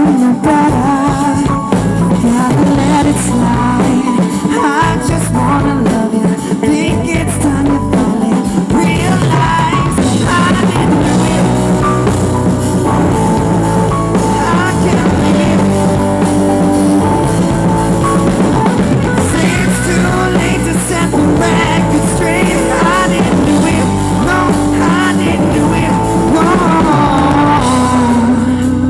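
Live rock band playing a song at a sound check: drum kit, guitar and bass, with a singing voice coming in and out over it.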